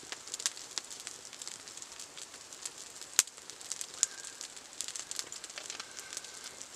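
Wood fire burning in a fire bowl, crackling with scattered sharp pops, the loudest about three seconds in.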